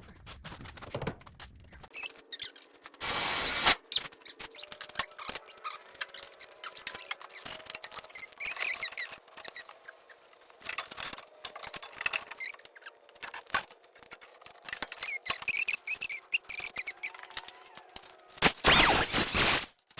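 Work on the Jeep's sheet-metal body panels: scattered clicks, taps and squeaks over a faint steady hum, with a short loud burst of noise about three seconds in and a longer loud stretch of noise near the end.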